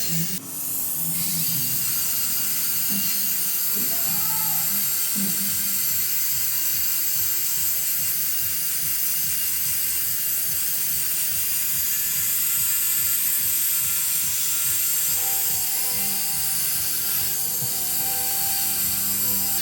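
Dental handpiece running steadily with a high whine while it polishes composite resin restorations to a shine. Faint background music plays underneath.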